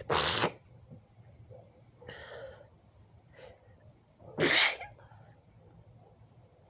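A woman sneezing twice, about four seconds apart, each a short loud burst, in an allergy sneezing fit.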